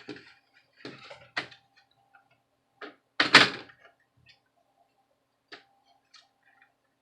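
Laptop parts and small tools being handled during a teardown: a series of light clicks and knocks, with one louder knock about three seconds in.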